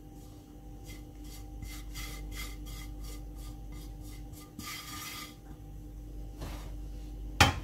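Hand scraping grated fat off a plate and rubbing it onto rolled-out dough: a quick run of soft rasping strokes, then a longer rub about five seconds in, and a sharp knock near the end.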